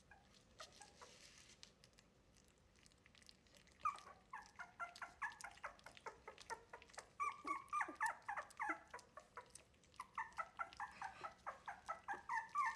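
Three-week-old wire-haired miniature dachshund puppies whimpering and squealing in a fast run of short, high, falling cries, starting about four seconds in, with a brief pause near ten seconds. The loud crying is the pups' protest at being given milk from a bowl by a person instead of nursing from their mother.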